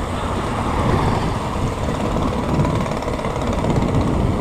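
Steady street noise of vehicle engines running, with low wind rumble on the microphone.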